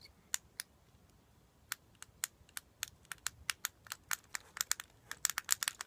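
Clicky buttons on a Fidget Cube being pressed: two clicks near the start, then after a short pause a run of quick clicks, several a second, getting faster toward the end.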